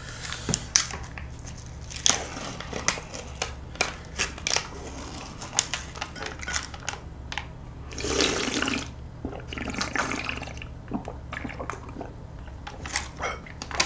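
Close-up eating sounds: small clicks and taps of a plastic cup, its lid and a spoon being handled, with louder slurps of liquid from the cup in the second half.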